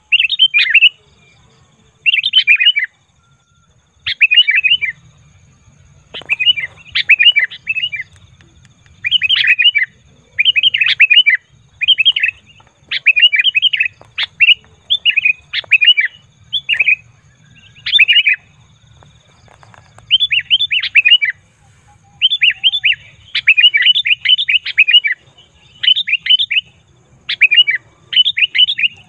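Sooty-headed bulbul calling in short bursts of quick, chattering notes. A burst comes every second or so, with brief pauses between them: the loud, busy chatter used as a lure call for wild bulbuls.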